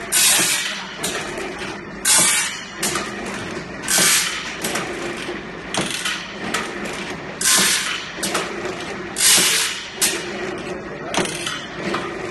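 Band saw blade side-grinding machine at work: its pair of grinding wheels grind the sides of the stellite-tipped teeth, one tooth at a time, giving a short grinding rasp about every two seconds. Lighter clicks of the tooth-feed mechanism fall between the rasps, over a steady motor hum.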